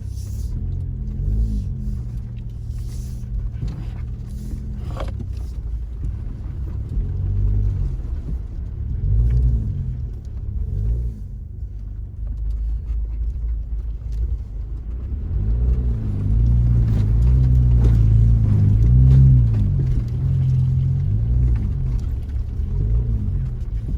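Jeep engine running under load on an off-road trail, its revs rising and falling again and again as it crawls over rough ground, with a few knocks and clunks. It is loudest about two-thirds of the way through.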